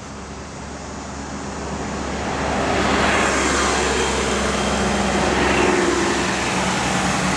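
Motor vehicle noise: engine and road rush swelling over the first few seconds, then holding steady and loud.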